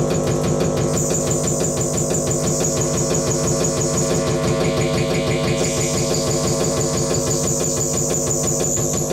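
Experimental electronic instrument playing a dense, buzzing noise drone: many held tones stacked together over a fast, even flutter, with a high whine that drops out for about a second halfway through and then comes back.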